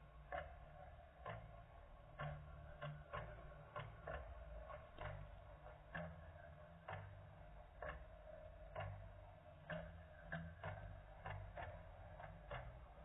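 Light clicks repeating about one to two times a second, somewhat unevenly, over a faint low hum.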